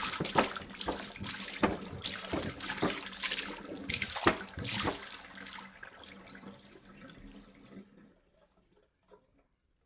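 Water poured from a jug, splashing and gurgling as it falls. After about five and a half seconds it fades to a thin trickle and ends in a few last drips.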